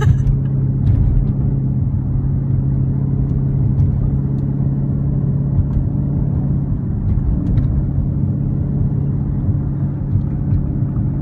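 Dodge Charger Scat Pack's 6.4-litre HEMI V8 cruising at a steady speed, heard from inside the cabin as an even low drone.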